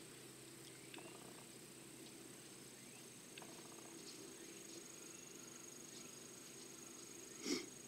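Faint, steady high-pitched insect trilling, a second trill joining about a second and a half in, over a low steady hum. A short, louder sound breaks in near the end.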